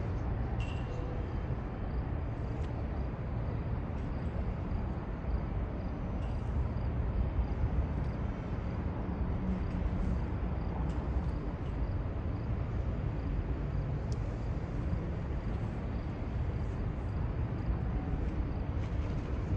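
Steady low rumble of a distant train moving slowly through the rail yard.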